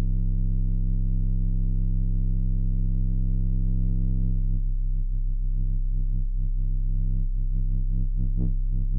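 Steady low electronic hum, a buzz with many overtones. About halfway through it begins to flutter faintly.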